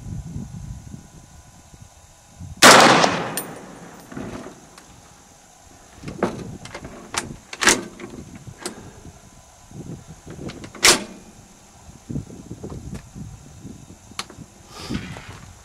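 One rifle shot from a 7.62x51 G3-pattern rifle (PTR-91) about two and a half seconds in: a sharp crack whose echo dies away over about a second. After it comes a run of shorter, sharper metallic clicks and clacks as the rifle is handled at the bench, one louder clack near the end.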